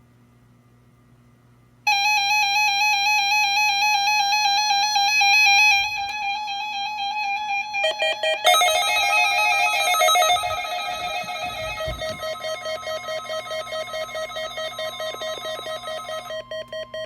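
Weather alert radios going off for a NOAA Weather Radio weekly test: a warbling electronic alarm starts suddenly about two seconds in, and a second, lower-pitched alarm joins about eight seconds in. About ten seconds in, the steady NOAA warning tone comes through, and the alarms turn to rapid beeping.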